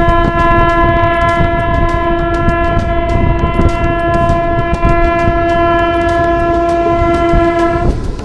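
Train horn sounding one long, steady, single-pitched blast of about eight seconds that stops near the end, over the rumble and rhythmic clickety-clack of the moving train's wheels on the rails.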